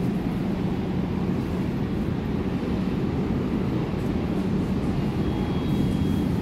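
Steady low rumble and hum from a Berlin U-Bahn F-type train at an underground platform. A faint high steady tone comes in for about a second near the end.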